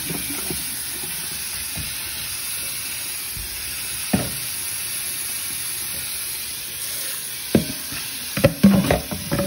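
Steady hiss of water running in a stainless steel sink while raw chicken wings are handled. A knock comes about four seconds in and a cluster of knocks near the end.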